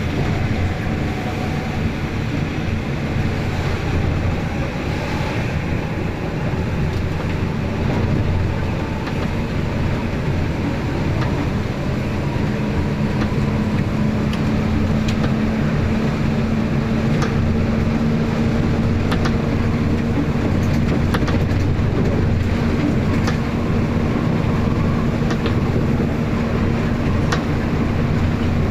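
Inside an intercity bus on the move on a wet road: steady engine drone and road noise, with a low hum that grows stronger about twelve seconds in. Scattered light ticks sound over it.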